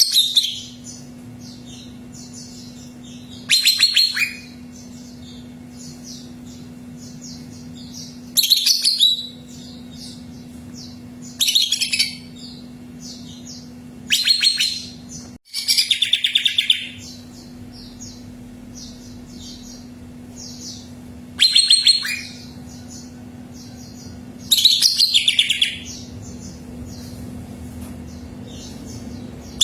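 Cucak ijo (green leafbird) singing: loud, fast trilled phrases of about a second each, repeated every few seconds, with quieter twittering between them. A steady low hum runs underneath.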